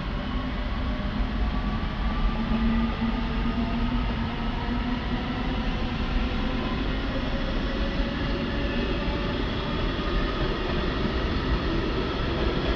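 Electric passenger train moving slowly past, a steady low rumble under a whine of several tones that glide slowly in pitch from its traction equipment.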